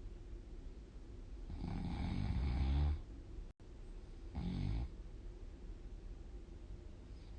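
A person snoring in sleep: one long snore about two seconds in and a shorter one about four and a half seconds in, with quieter breathing between.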